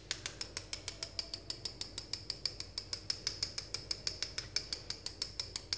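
Small metal mesh sieve shaken and tapped to sift cocoa powder, giving a quick, even run of light metallic ticks, about seven a second.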